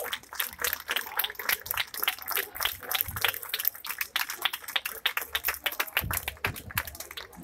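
Audience applauding with many quick, irregular hand claps, thinning out near the end.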